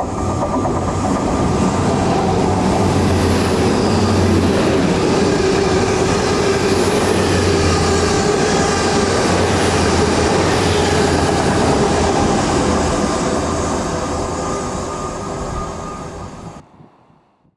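A train running past close by, a loud, steady rumble of wheels on rail. It fades over the last few seconds and then cuts off suddenly near the end.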